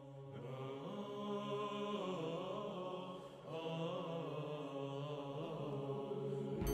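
Music: a single voice chanting a slow, ornamented melody over a steady low drone. A deep boom hits right at the end.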